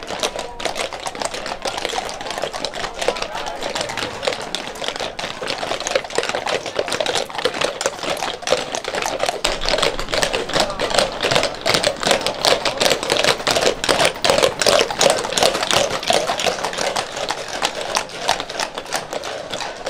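Many horses' hooves walking on a brick street, a dense, irregular clatter of clip-clops, over the chatter of a crowd.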